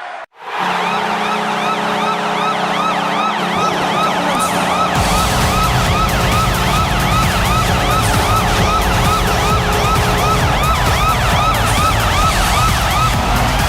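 Washington Capitals arena goal horn sounding a steady low tone, with a siren yelping rapidly up and down over it, about two or three sweeps a second. About five seconds in, a loud music track with a heavy beat comes in under the siren.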